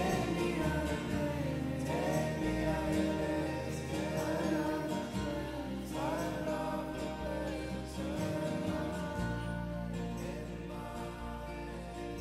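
A song's closing section: sung vocals in harmony over guitar and bass, fading gradually.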